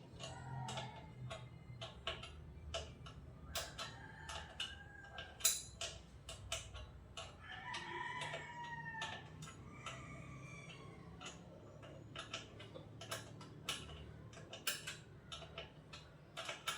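Chickens clucking in the background, with a rooster crowing about eight seconds in and again around ten seconds in. Through it, sharp metallic clicks and taps of hand tools as the front brake cable is worked off a motorcycle.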